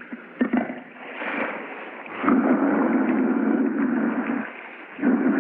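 Low, rough growling of a big cat echoing around an indoor swimming pool. It comes in two long stretches, the first about two seconds in and the second starting near the end.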